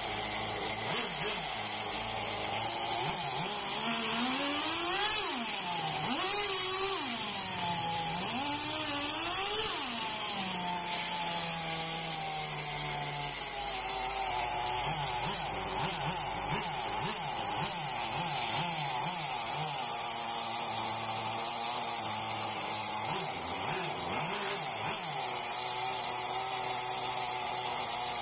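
Kyosho truggy's two-stroke nitro glow engine running as its carburettor is tuned. About four seconds in it is revved up and down three times, then it drops back to idle with a few quick uneven blips.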